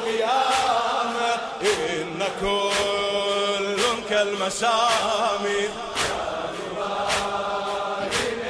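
Male voice chanting an Arabic Husseini nasheed in long, drawn-out sung phrases, punctuated by sharp percussive hits roughly once a second.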